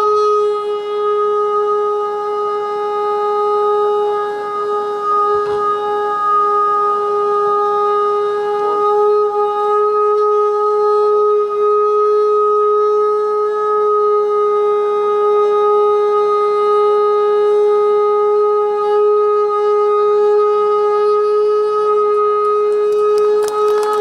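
Shankhnaad: a conch call blown as one long, steady note with overtones, held unbroken throughout, dipping slightly in loudness about four seconds in.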